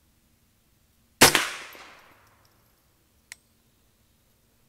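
A single .22 LR rifle shot from a customized semi-automatic Ruger 10/22 with a stainless bull barrel, about a second in, its echo dying away over about a second. A faint short click follows about two seconds later.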